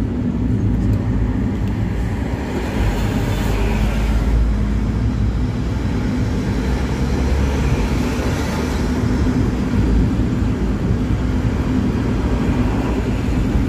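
Steady engine and road noise heard from inside a vehicle cruising on a highway: a continuous low drone with a faint, even hum.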